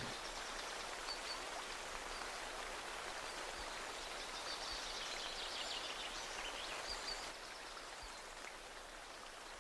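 Faint steady background hiss with a few faint, short high chirps, dropping a little in level about seven seconds in.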